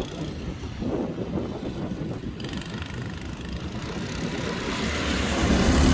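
Go-kart engines running as several karts lap the track, getting louder near the end as they come closer.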